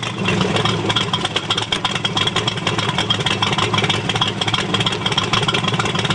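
A Factory Five Mark III Cobra replica's Ford V8 idling steadily with a fast, even pulsing rumble, just after being started.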